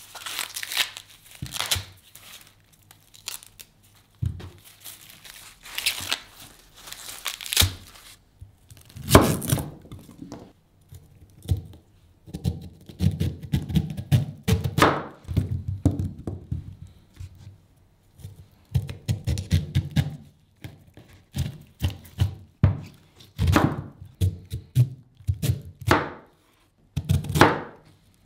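Fresh corn husks tearing and crackling as they are pulled off the ears. From about nine seconds in, a large kitchen knife cuts lengthwise through the corn cobs with repeated crunching thunks onto the cutting board.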